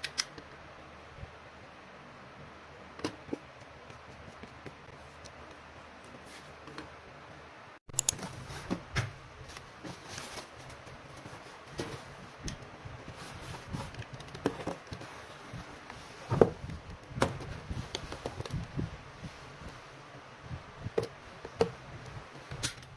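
Hands handling a taped cardboard shipping box: irregular taps, knocks and rustles of cardboard and plastic tape. For the first several seconds there are only a few faint clicks from handling a photocard before the box handling starts.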